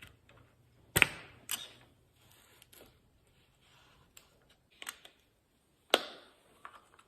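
A few sharp clicks and knocks of hand tools and small parts being handled and set down while working on a Turbo 350 transmission's accumulator cover, the loudest about a second in and again near the end.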